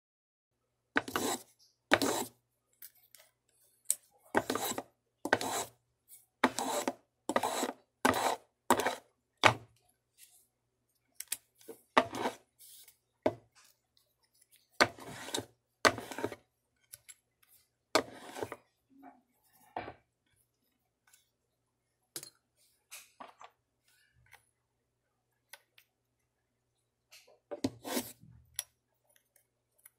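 Hand-tool work on small wooden kumiko strips: a series of short scraping strokes, some in a quick run of about one a second, with pauses between groups.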